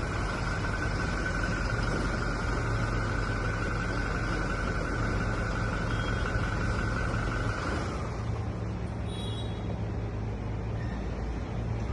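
Steady hum of a running engine, with a high steady whine that slides down and drops away about eight seconds in.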